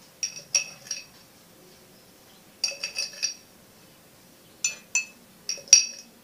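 A metal spoon clinking against a cup in four short runs of quick strikes, each ringing briefly at the same pitch, as when stirring instant coffee.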